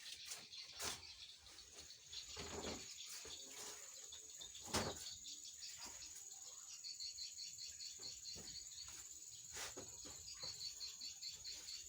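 Faint outdoor ambience of insects: a steady high-pitched buzz, with rapid trains of high chirps twice in the second half. A few sharp clicks and knocks sound over it, the loudest near the middle.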